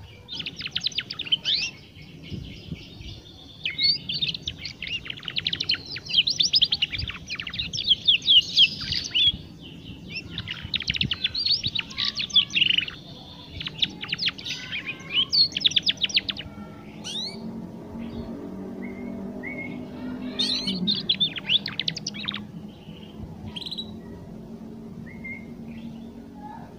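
Young domestic canary twittering its practice song: rapid, high trills and warbles in repeated bursts through the first half, then scattered chirps and one more burst about three quarters of the way through. This is a juvenile bird still learning to sing. A faint low hum comes and goes behind it in the second half.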